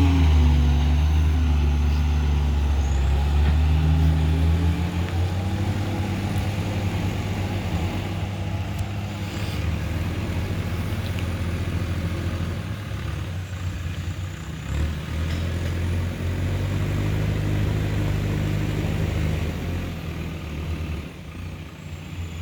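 Heavy diesel engine running under load. Its revs drop at the start, then rise and fall several times, and the sound grows quieter toward the end.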